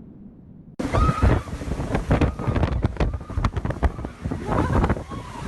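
Strong wind buffeting the microphone in loud, uneven gusts, starting abruptly about a second in.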